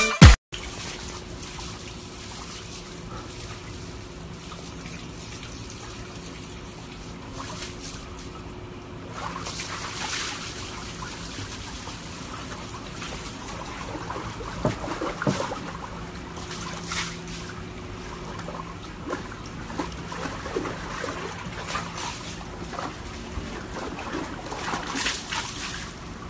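Water trickling, with small irregular splashes and clicks over a faint steady hum.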